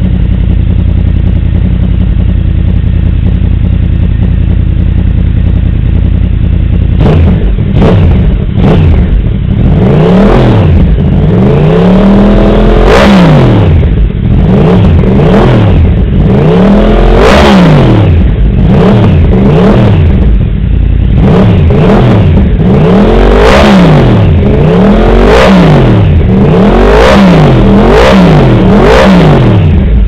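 Yamaha R1's crossplane-crank inline-four with a Yoshimura exhaust idling steadily for about seven seconds, then revved over and over in quick throttle blips, its pitch rising and falling each time.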